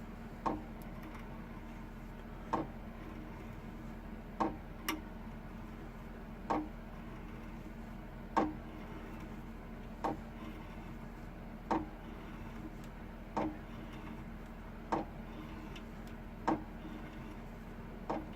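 Tap being turned by hand into a wooden arbor blank: a sharp click with a short ring about every second and a half to two seconds, over a steady low hum.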